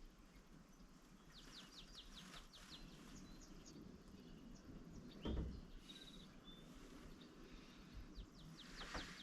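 Faint outdoor ambience with small birds chirping in quick runs of high notes, twice. A single dull thump about five seconds in.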